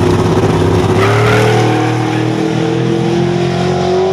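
Drag racing car, the Camaro-bodied 'Terremoto', launching at full throttle. About a second in the engine note changes and then rises steadily as the car accelerates down the quarter-mile strip.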